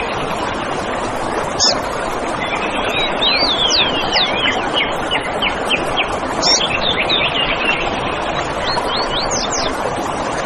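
Songbirds chirping over a steady rushing background noise. A fast run of short chirps comes from about two and a half seconds to six seconds in, with sharp whistled notes near the start, around six and a half seconds, and again near the end.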